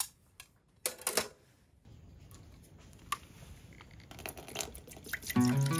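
A few light clicks and knocks of small objects being handled, over a faint hiss; background music begins near the end.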